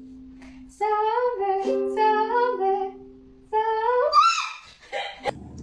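Music: a short melody sung in a high voice, in two phrases of held, stepping notes over a sustained low note, the second phrase ending on a rising note.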